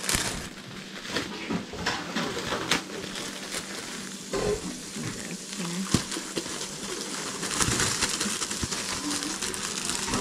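Thin plastic produce bag crinkling and rustling as bok choy is shaken out of it into a plastic bowl, with a sharp knock about six seconds in. A faint steady low hum sits underneath.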